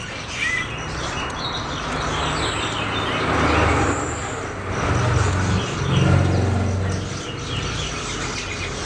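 Several caged songbirds chirping and twittering over a steady low rumble that swells in the middle.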